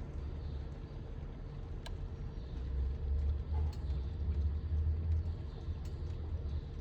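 BMW N55 turbocharged straight-six running at idle in neutral, fully warm, with a few faint, irregular clicks over the steady engine rumble. The clicking is the unexplained noise the owner hears after revving, likened to a card ticking against bicycle spokes.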